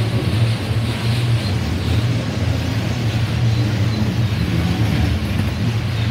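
Freight cars rolling past on the track: the steady rumble of steel wheels on rail as autorack and coal hopper cars go by.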